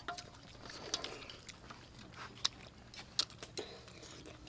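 People eating soup and chewing, with a few sharp clicks of spoons against bowls.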